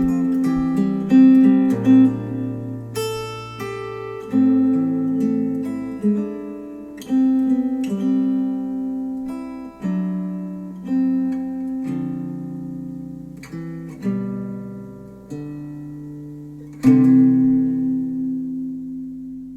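Acoustic guitar music, a run of plucked notes and chords that each ring out and decay, played back through Focal Chora 806 bookshelf speakers driven by a NAD C 338 amplifier.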